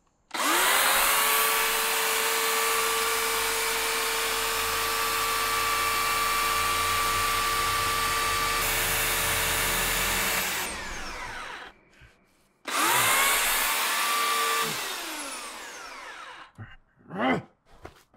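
Chainsaw spinning up to full speed and running steadily for about ten seconds, then winding down with a falling pitch. About a second later it is revved up again for a couple of seconds and winds down once more.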